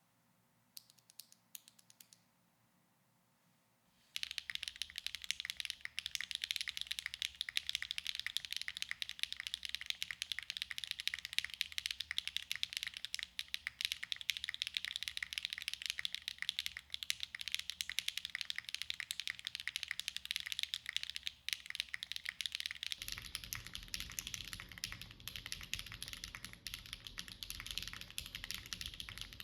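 A few single presses of an HMX Cloud linear mechanical switch, then from about four seconds in, continuous fast typing on a Neo Ergo Alice-layout mechanical keyboard with HMX Cloud linear switches, a polypropylene plate and GMK Blossom keycaps. Near the end the typing is heard through an iPhone microphone, with more low rumble.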